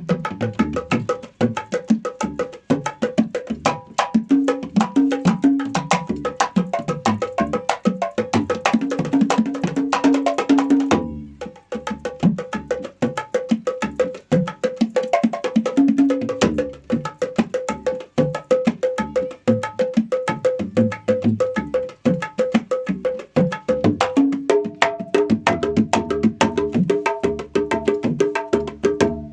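Kendang and ketipung hand drums played in a fast, dense stream of open and slapped strokes, over backing music with held chords that change about twenty-four seconds in. Drums and backing stop for under a second about eleven seconds in, then resume.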